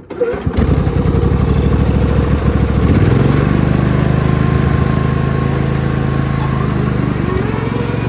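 Toro LX500 lawn tractor's twin-cylinder engine starting abruptly and then running. Its pitch shifts up and steadies about three seconds in.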